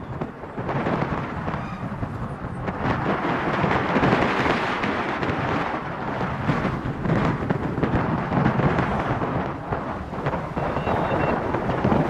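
Loud, uneven rumbling rush of noise that swells and falls throughout.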